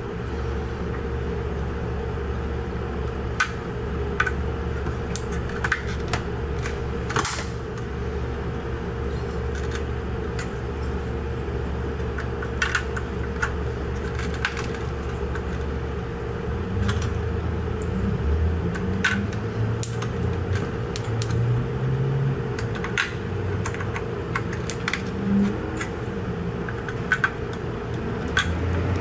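Scattered small plastic clicks and taps as gauge stepper motors are pressed onto an instrument cluster circuit board and their pins pushed through the holes. Under them runs a steady low hum.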